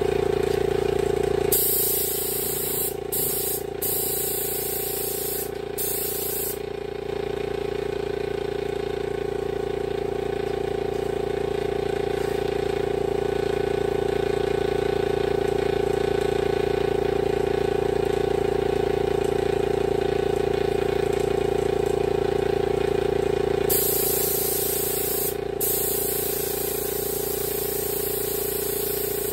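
Air spray gun hissing as it sprays primer surfacer. It sprays from about a second and a half in to about six and a half seconds, with a few short breaks, and again over the last five or so seconds. A motor hums steadily underneath throughout.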